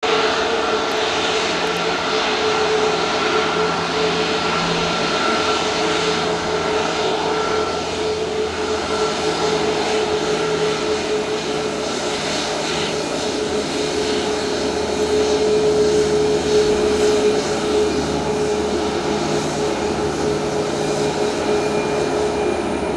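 Boeing 737 MAX's CFM LEAP-1B turbofan engines running at low taxi power as the airliner rolls along the runway: a steady jet whine over a broad rushing noise, getting a little louder about two-thirds of the way through.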